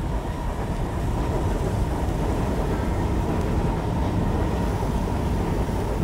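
Steady low rumbling noise with a faint steady whine above it.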